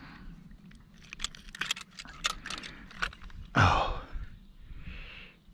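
A quick run of small clicks and rattles as a bluegill is hooked onto the metal hook of a handheld digital hanging scale, with a man's short "oh" about three and a half seconds in.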